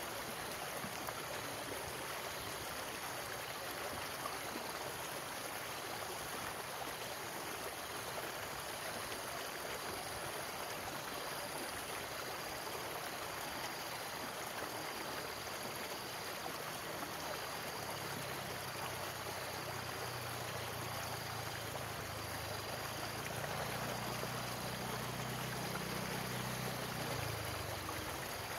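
Steady rushing of a shallow stream pouring over rocks. A low hum joins about two-thirds of the way through and stops near the end.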